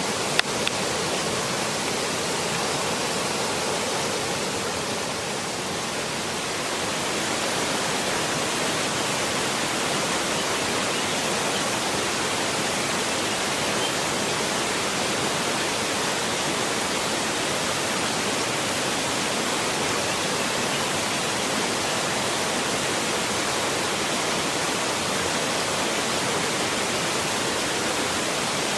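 Mountain stream rushing steadily, an even wash of water noise, with a single short click about half a second in.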